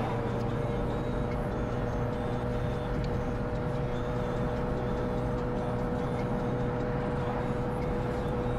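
Steady drone of engine and road noise heard from inside a car's cabin at a constant cruising speed, with an even hum that holds one pitch.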